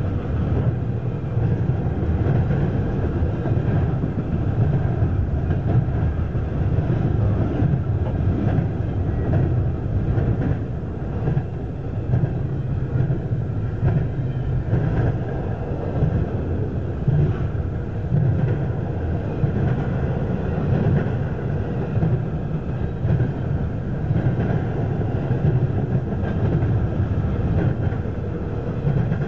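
CSX double-stack intermodal freight train passing, its well cars rolling by with a steady, heavy rumble of steel wheels on the rails.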